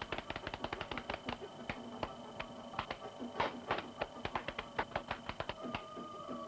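Rapid dry tapping sound effects, several a second and unevenly spaced, standing for a cartoon secretary bird's feet stamping at a snake, over faint background music.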